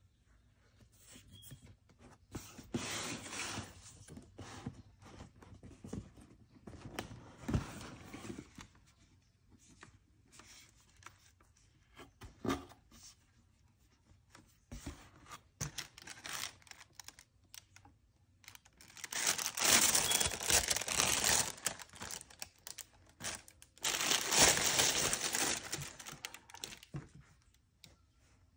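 A cardboard sneaker box and its tissue-paper wrapping being handled. First come scattered rubs and knocks. Then, past the middle, the tissue paper rustles and crinkles loudly in two stretches of a few seconds each as it is pulled back from the shoes.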